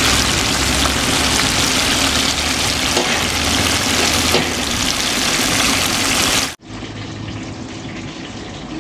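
Battered pieces deep-frying in a wok of hot oil: a loud, steady sizzle. About six and a half seconds in, it cuts off suddenly and gives way to a quieter hiss.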